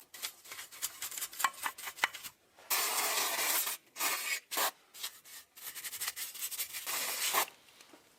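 Irregular hand rubbing and scraping strokes, in short runs with brief pauses, stopping near the end: cleaning work on a part of an old bench drill press.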